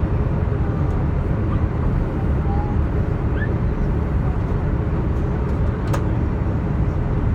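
Cabin noise inside a Boeing 787-8 airliner in flight: a steady low rumble of airflow and engines, with a faint click about six seconds in.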